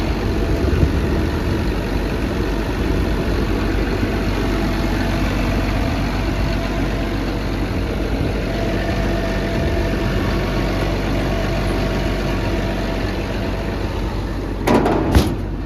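Cummins diesel engine of an XCMG XE210CU excavator idling steadily, sounding good and running smoothly. A short, loud clatter comes about a second before the end.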